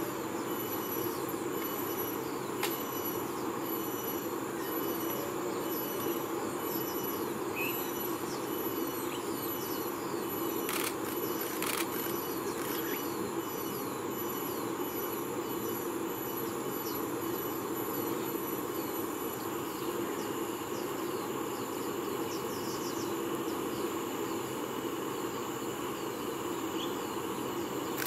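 Steady background of insects trilling in even pulses over a low, constant hum, with two sharp clicks about a second apart near the middle.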